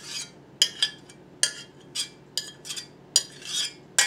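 A spoon scraping and clinking against the inside of a stainless-steel saucepan as thick glaze is scraped out into a bowl: a quick, uneven run of short, sharp scrapes and clicks, two or three a second.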